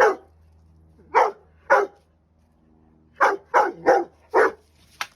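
A dog barking: about seven short, sharp barks in two bunches, three at first and then four more in quicker succession.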